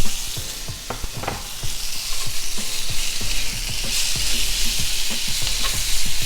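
Smoked sausage links and bacon jam sizzling in a frying pan, with a utensil clicking and scraping against the pan as the jam is stirred and broken down.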